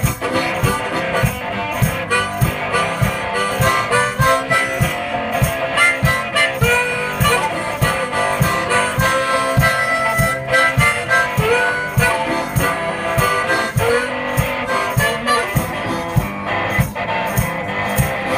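One-man band playing an instrumental break: a harmonica melody over strummed acoustic guitar, with a steady beat underneath.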